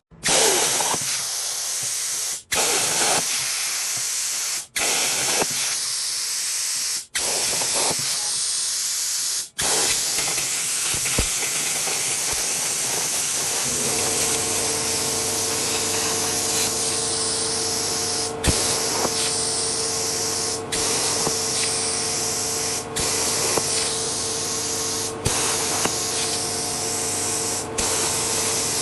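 CNC plasma cutter cutting: a loud, steady hiss of the torch, broken off sharply four times in the first ten seconds and dipping briefly a few more times later. From about halfway a steady machine hum joins it.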